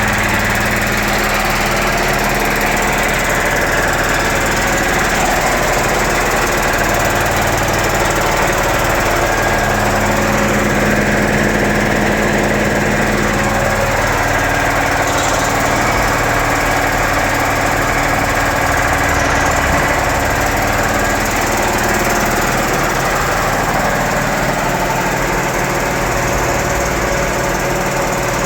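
United 5 HP air compressor, driven by a 3.7 kW four-pole electric motor, running steadily with a constant mechanical hum and clatter.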